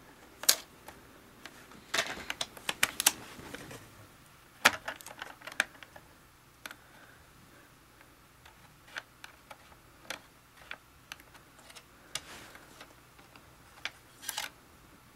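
Scattered small clicks and taps of hands working on the open RAM bay of a 27-inch iMac, handling the memory sticks and their plastic parts, in irregular bunches with pauses between.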